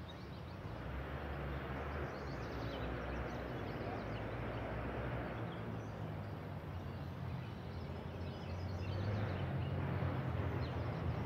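Outdoor background: a steady low rumble that grows a little louder near the end, with faint bird chirps over it.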